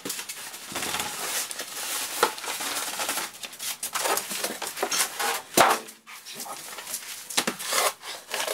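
Styrofoam packing lid rubbing and squeaking as it is pulled off a bandsaw shipping box, with plastic wrapping rustling and handling clatter. One loud, sharp sound a little past halfway.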